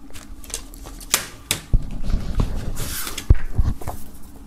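Standard plastic CD jewel case being opened and handled: a series of sharp plastic clicks and snaps at uneven intervals, with a short rustle as the paper booklet is slid out.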